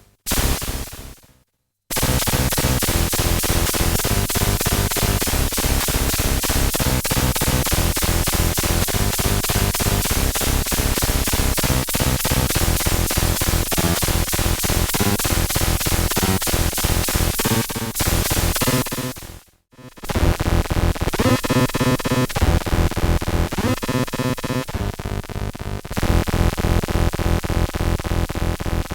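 EDP Wasp monophonic analog synthesizer playing harsh, buzzy, rapidly repeating notes at a loud level. It stops briefly a little past two-thirds of the way through, then comes back with sweeping pitch glides.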